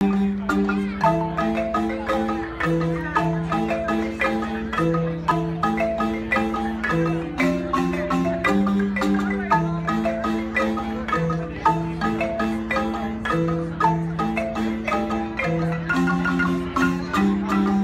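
A marimba band playing an up-tempo piece: a low bass-marimba line under quick, interlocking mallet patterns on higher marimbas, struck notes at a steady pulse.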